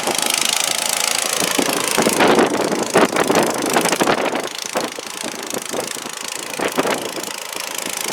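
A car running while driving through a snowstorm: a steady rush of noise with scattered crackles throughout.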